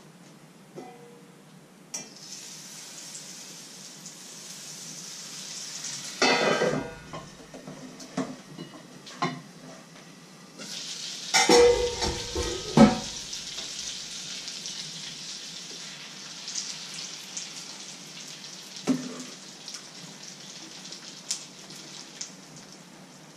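Frying pan sizzling steadily on the stove while pancakes are being made. The sizzling starts a couple of seconds in and grows louder about halfway through. Metal pots and a lid clatter twice, about a quarter and about halfway through, these being the loudest sounds.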